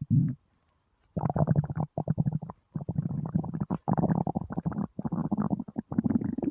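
Human stomach growling and gurgling from hunger on an empty stomach. After a brief gurgle and about a second's pause, long runs of rapid bubbling rumbles follow one after another with short breaks.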